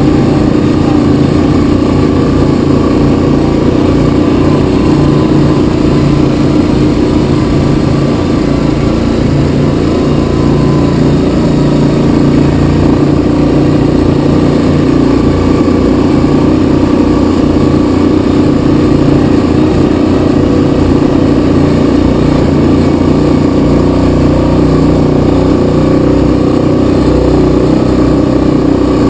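Yamaha Kodiak 700 ATV's single-cylinder engine running steadily under way, loud and even, with no big revs.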